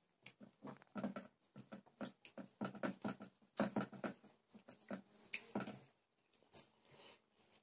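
Close-up mouth sounds of eating tamarind chutney: quick wet lip smacks and slurps in an uneven stream, with a brief hissing slurp about five seconds in.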